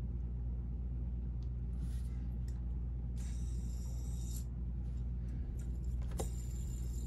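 Steady low hum of background room noise, with a brief faint rustle about three seconds in and a single sharp click about six seconds in.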